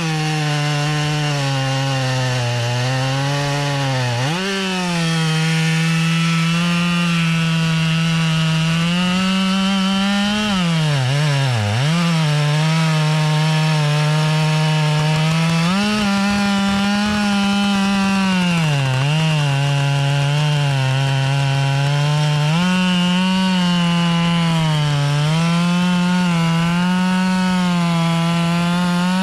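Two-stroke chainsaw running at full throttle while cutting through a log. The engine speed sags under load about four times in the cut and picks back up each time.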